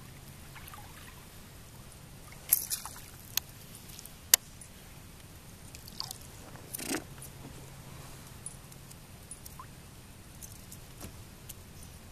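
Sharp knocks and clicks on a kayak from fishing gear being handled, the loudest a little past four seconds, with a brief water slosh near seven seconds.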